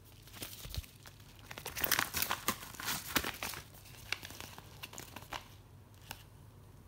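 Packaging crinkling and tearing as it is opened by hand. A dense run of crackles in the middle thins out toward the end.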